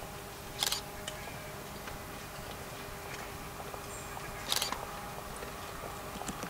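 Camera shutters firing in two short rapid bursts, about half a second in and again about four and a half seconds in, over a steady faint hum.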